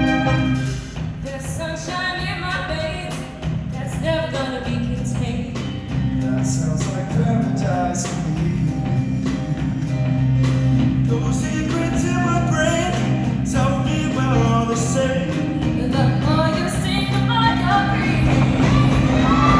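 Show choir singing a number over instrumental backing with a steady bass line and drum hits.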